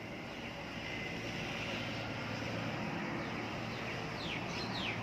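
Steady background noise with a low hum, likely distant traffic, and a bird calling in a few short falling chirps near the end.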